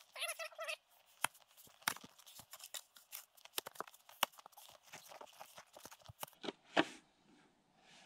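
Snow shovel digging into deep, packed snow: an irregular run of short crunches and scrapes as the blade is driven in and snow is lifted away, with one louder crunch near the end.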